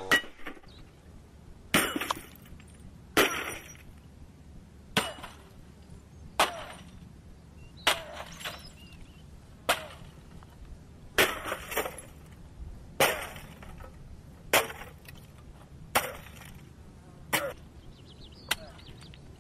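Repeated hammer blows smashing an old tube television set, with glass and casing breaking and clinking. There are about fourteen strikes, roughly one every second and a half.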